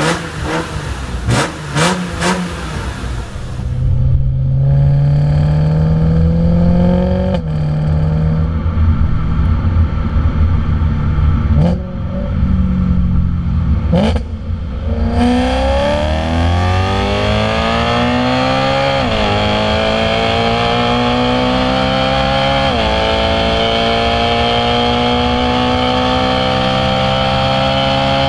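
A BMW E36 M3 3.0's straight-six revving with sharp cracks for the first few seconds. Then a BMW E93 M3's V8 through an Akrapovic exhaust, heard at the tailpipes: first pulling at lower revs, then under full acceleration through the gears, its pitch rising steadily and dropping at each upshift about every four seconds.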